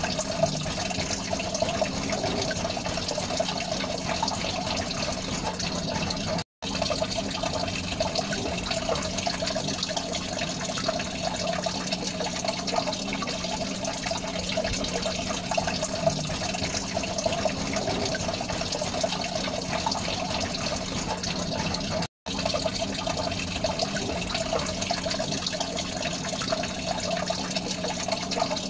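Steady running, bubbling water in a small fish tank, with a constant low hum underneath. The sound cuts out completely for an instant twice.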